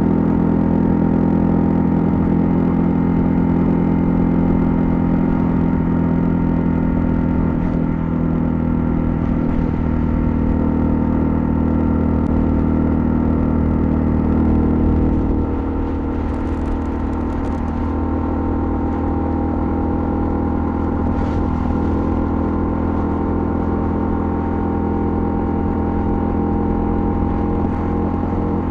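Honda CL250's single-cylinder engine running steadily under way. Its engine note drops a little about halfway through and holds at the lower level.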